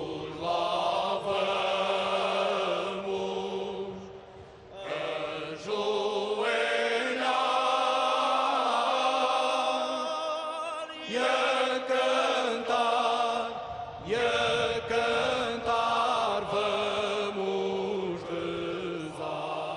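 Cante Alentejano: a male choir singing unaccompanied in slow, long held phrases, with short breaks about four, eleven and fourteen seconds in.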